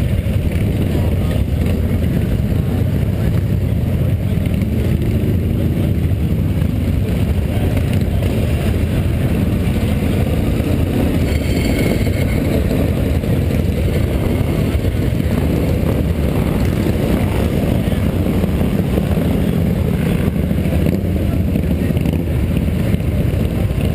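Many cruiser motorcycle engines rumbling together as a column of bikes rides slowly past at low speed; a steady, loud, low rumble throughout.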